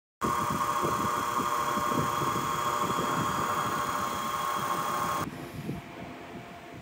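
WEN benchtop mini wood lathe running with a steady whine over a mechanical rumble. About five seconds in the whine stops and only a fainter noise remains.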